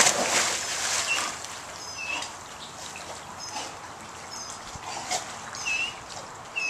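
A dog plunges into a swimming pool with a loud splash, then the water sloshes and laps as the dogs swim. Short bird chirps repeat in the background.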